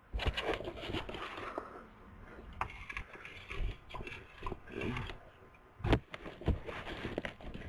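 Scattered knocks, clicks and scrapes of objects being handled, with one sharper knock about six seconds in.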